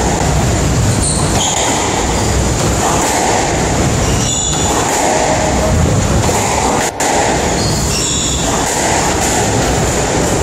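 A steady loud rushing noise, with short high squeaks of court shoes on the wooden squash floor about a second in, near the middle and about eight seconds in.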